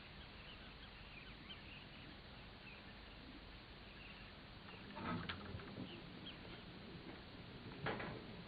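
Faint outdoor ambience with scattered short, high bird chirps, and two brief louder sounds about five and eight seconds in.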